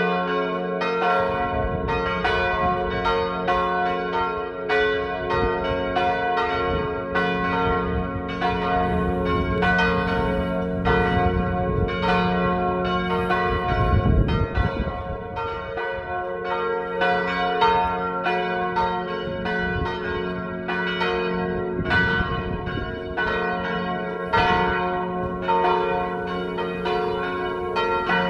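Three swinging church bells, tuned G-flat, B-flat and D-flat, ringing together in a full peal: overlapping strokes about two a second over a steady hum of their ringing tones. A brief low rumble about 14 seconds in.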